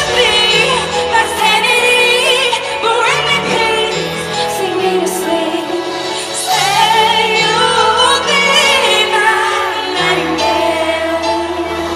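A woman singing a slow pop ballad live, with long held notes and vibrato, over sustained instrumental accompaniment.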